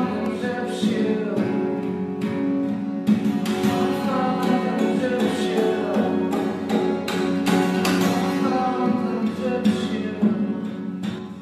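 Acoustic guitar laid flat across the lap and played slide-style. Plucked notes ring over sustained low drones, and some pitches glide up and down.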